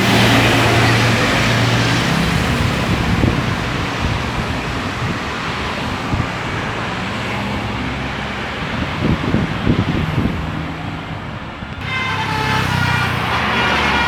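Road traffic passing close by: vehicle engines running under a steady rush of tyre and wind noise. About twelve seconds in the hiss drops away and a new engine sound comes in.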